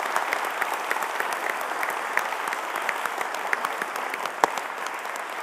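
A large audience applauding steadily, many hands clapping at once, with one sharper knock standing out near the end.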